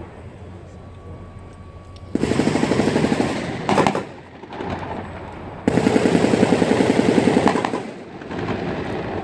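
Machine gun firing two long, rapid bursts a few seconds apart, the second lasting about two seconds, with a single sharp crack between them.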